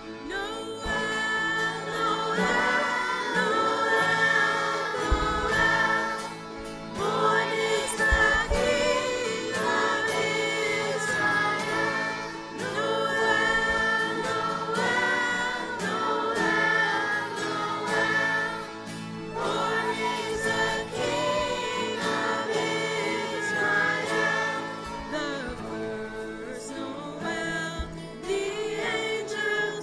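A choir singing a Christian worship song with instrumental accompaniment, in phrases a few seconds long.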